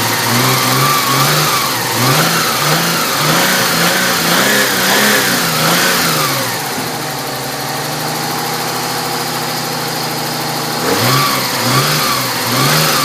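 Nissan 300ZX's 3.0-litre V6 running on its newly fitted timing belt, blipped in quick repeated revs. About six seconds in it settles to a steady idle for around four seconds, and the revs start again near the end. It runs with no rubbing from the belt, and sounds better than yesterday.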